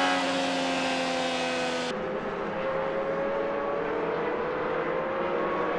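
IndyCar race car's twin-turbo V6 engine running at speed, a steady high engine note with tyre and wind noise. After an edit about two seconds in, the engine pitch climbs slowly.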